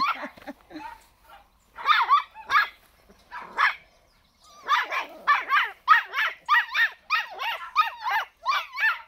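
A dog yipping and barking in high-pitched calls: a few separate yips in the first few seconds, then a quick run of barks, about four a second, from about halfway through.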